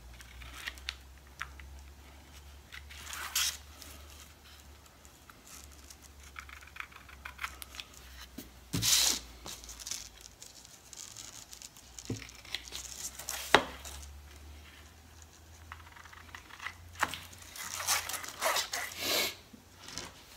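Tin snips cutting a paper pattern: short crisp snips and the paper rustling and crinkling in uneven spells, with one sharp click about two-thirds of the way through and more handling of the paper near the end. A faint low hum runs underneath.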